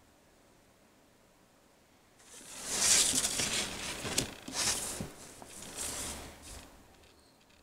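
A sheet of drawing paper slid and turned on a table: several rustling, scraping swells, starting about two seconds in and fading out about five seconds later.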